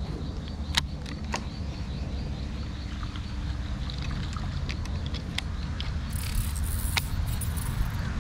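A small boat's engine running steadily with a low rumble, with scattered light clicks over it and a brief high hiss about six seconds in.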